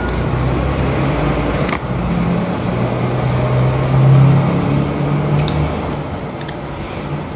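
A motor vehicle's engine hum, swelling to its loudest about four seconds in and then fading, with a few short clicks over it.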